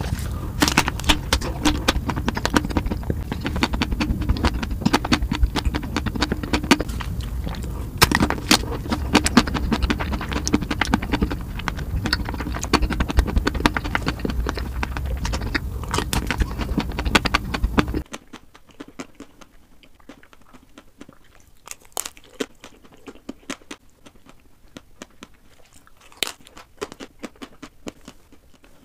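Close-miked eating sounds played at double speed: chocolate-coated ice cream bars being bitten and chewed, with many crisp crackles over a steady low hum. About two-thirds of the way in the hum stops abruptly and the bites and chews become sparse and softer.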